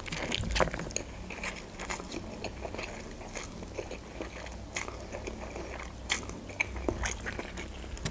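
Close mouth sounds of instant noodles being eaten: noodles drawn in from a fork, then chewed, with scattered small wet clicks.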